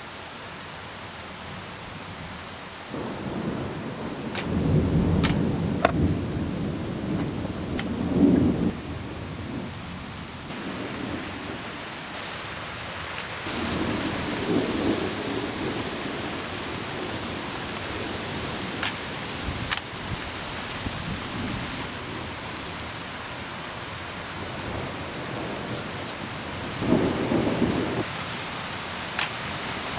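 Thunder rumbling over steady rain: a long, deep roll beginning about three seconds in, which is the loudest, then a shorter rumble near the middle and another near the end. A few sharp clicks are scattered throughout.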